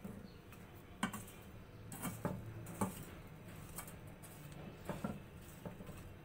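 Wet raw peanuts being stirred through hot salt in a metal karahi with a wire-mesh strainer: irregular scraping and rattling strokes, about one or two a second. This is the slow-flame salt-roasting stage of making salted peanuts.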